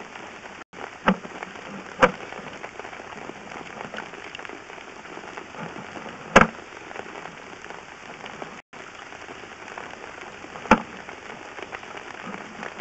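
Sewer inspection camera being pushed through a scale-crusted, corroded cast iron sewer line: a steady crackling scrape with four sharp knocks as the camera head bounces over the scale, about one, two, six and ten and a half seconds in. The sound cuts out for an instant twice.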